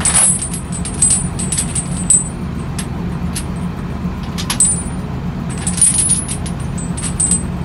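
Heavy steel flail chains clinking and jangling against each other as they are handled on the upper flail drum, with many sharp metallic clinks over a steady low machine hum.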